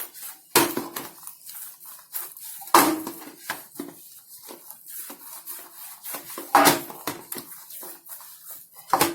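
Hand-kneading of soft bread dough in a parat, the plate knocking and clattering on the counter under the pushes, with four louder knocks a couple of seconds apart and lighter clicks and rubbing between.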